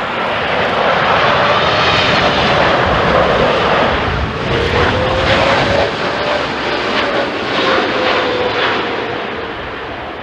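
Jet airliner's engines passing close by: steady, loud engine noise, with a whine that rises and then falls in pitch from about four seconds in, fading toward the end.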